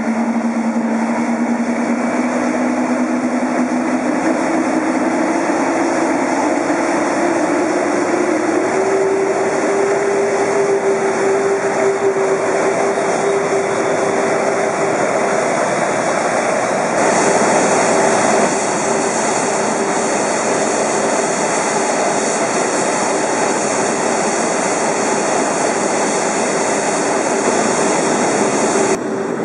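Airbus A380-800's four Engine Alliance GP7200 turbofans running close by at low thrust. A whine climbs steadily in pitch over the first several seconds and then holds, under a constant jet rush that turns hissier about halfway through.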